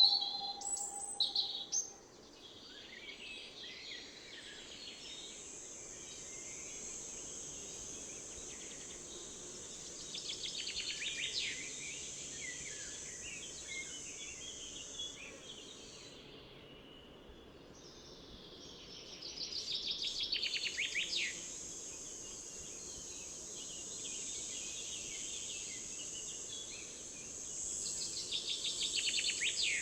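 Songbirds singing in the open, with short chirps at first and then a rapid trilled phrase that comes three times, each lasting a couple of seconds. Under them runs a steady high insect buzz that drops out briefly about halfway through, over the faint steady hiss of the river stream.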